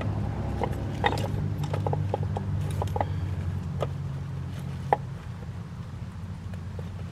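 Irregular light clicks and knocks of a new water pump and its O-ring being handled and worked into place on the engine, over a steady low hum.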